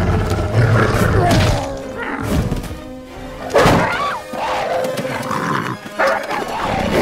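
Dramatic film score with animal snarls and roars from fighting mutant dogs. A sudden loud hit comes about halfway in, with a woman screaming.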